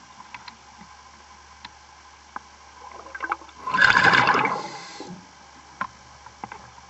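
Water gurgling and bubbling in one loud burst about four seconds in that lasts about a second, with faint scattered clicks around it.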